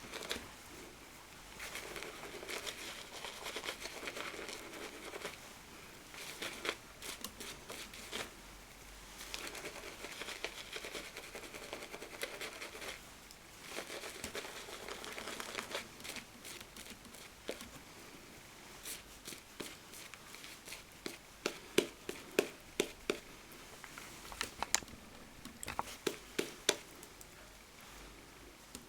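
Shaving brush swirling and whipping glycerin shaving soap into lather in a shaving mug: a faint, wet crackling. In the second half come a run of sharp clicks about every half second.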